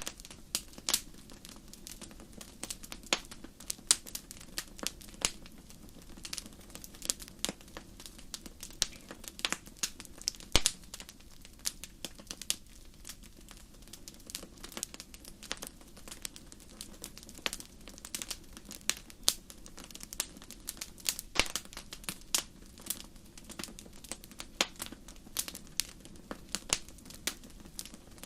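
Wood fire crackling: a dense run of irregular sharp pops and snaps over a faint steady low rush.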